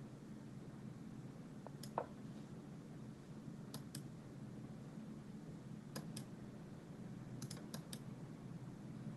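Scattered clicks of a computer mouse, some in quick pairs and a fast run of four near the end, the strongest about two seconds in, over a low steady hum.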